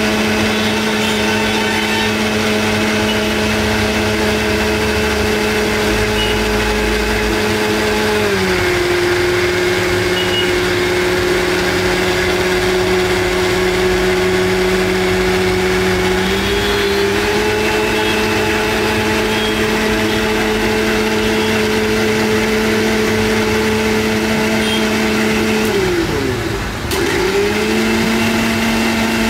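Electric motor of a juice-stall appliance running with a steady hum. Its pitch drops about eight seconds in and comes back up after about seventeen seconds. Near the end it briefly winds down and picks up again.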